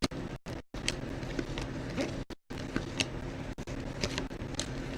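Trading cards being handled and flipped through: a string of soft, short ticks and flicks of card stock over a low room hum, with the sound cutting out briefly a few times.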